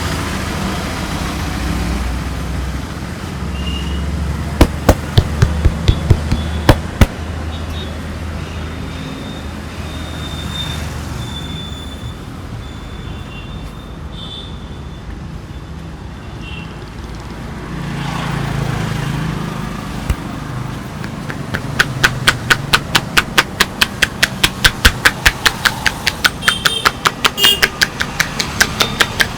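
Sharp hand slaps and taps of a massage: a few claps about five seconds in, then a fast, even run of tapping, several strikes a second, from about twenty-two seconds on. Street traffic rumbles underneath.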